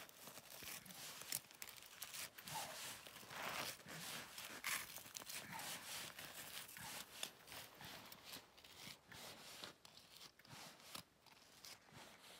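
Faint, irregular crunching, scraping and rustling of a climber working close at an ice anchor: ice being scratched and crunched, with down-jacket fabric and gear being handled.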